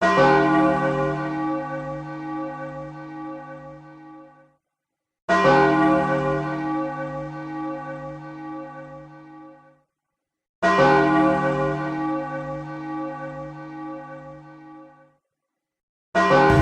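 A large bell tolling three times, about five seconds apart, each stroke ringing out and fading away over about four seconds. A louder, denser sound begins just before the end.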